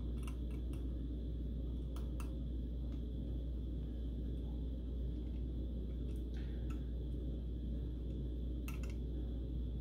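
Scattered faint clicks and taps of a floppy disk drive being picked up, turned over and handled, over a steady low hum and a faint high whine.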